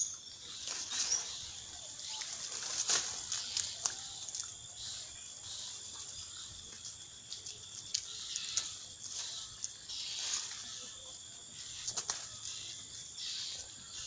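Leaves and twigs rustling and crackling in irregular bursts as black-and-white colobus monkeys feed in the tree, over a steady high hiss.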